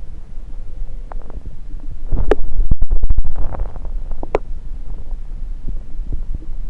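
Stomach gurgling and rumbling, amplified through a stethoscope pressed on the belly: a steady low rumble with scattered small pops and clicks. About two seconds in, a louder burst of rapid gurgling lasts about a second and a half, and a sharp pop follows about a second later.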